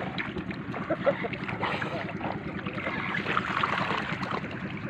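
Water splashing and churning as a crowded catch of milkfish thrashes at the surface inside a drawn-in net, a continuous crackle of small splashes.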